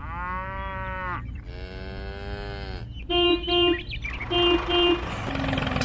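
Two long mooing calls like a cow's, each about a second and slightly arching in pitch, followed by two pairs of short, steady-pitched beeps.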